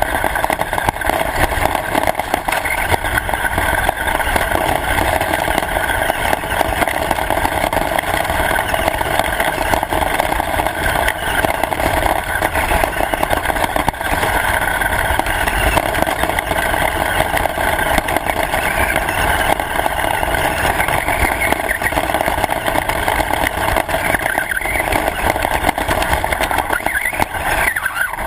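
Radio-controlled car running steadily, its motor and drivetrain making a continuous mechanical noise.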